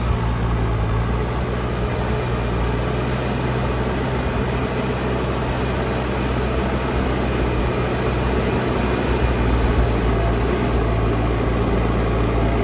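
A large engine running steadily with a low, even hum.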